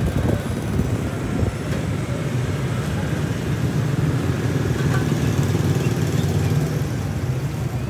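Street traffic: a steady low rumble of passing vehicle engines, heaviest in the middle stretch.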